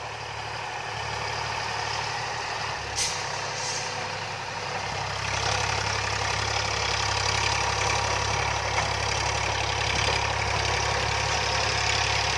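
Eicher 548 tractor's three-cylinder diesel engine running steadily while it pulls a rotavator through the soil, getting louder about five seconds in as it comes closer.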